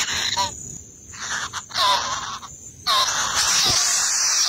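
Kingfisher nestlings begging: a noisy, rasping chatter laced with short squeaky calls. It breaks off twice, then swells into a loud, unbroken chorus about three seconds in as the chicks gape for food.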